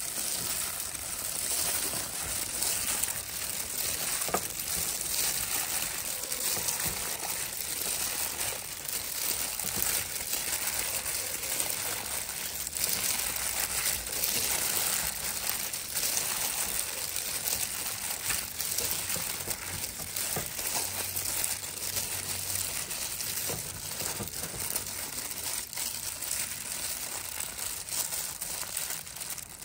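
Food frying in hot oil: a steady sizzle thick with small crackles.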